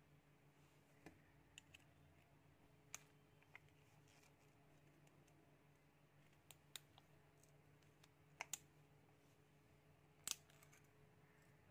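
Faint scattered metallic clicks and ticks as needle-nose pliers grip and peel a thin spot-welded metal strip off a metal bar, the welds giving way one by one; about ten sharp clicks, the loudest near the end.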